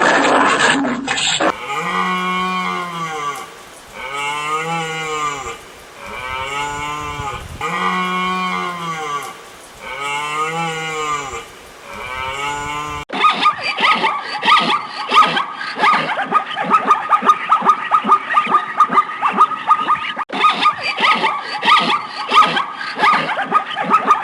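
Cow mooing: about six arching calls in a row, each a second or two long. Just under halfway through, the sound cuts to a different, dense run of rapid short pulses.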